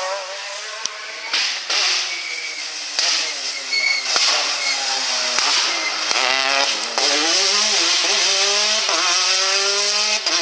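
Citroën DS3 rally car engine revving hard through a tight bend, its pitch climbing and dropping sharply with each gear change and lift, with a few sharp cracks. It then pulls away under full throttle, the pitch rising.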